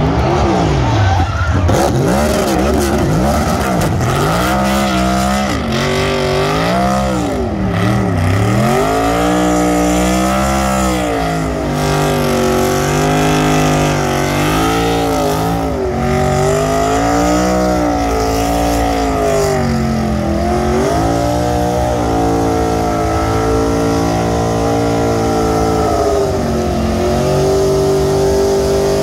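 NASCAR Cup stock car's V8 engine revving hard during a burnout, its pitch swinging up and down over and over, with the rear tyres spinning and smoking. The first few seconds are quick blips, then come longer swells, and near the end the revs are held high.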